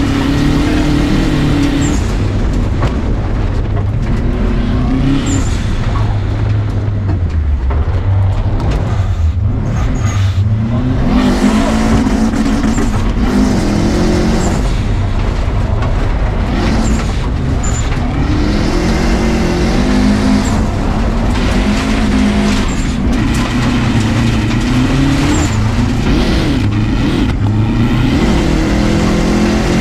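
Subaru WRX rally car's turbocharged flat-four engine being driven hard, its revs climbing and dropping again and again through the run, over a constant noise of tires on loose dirt.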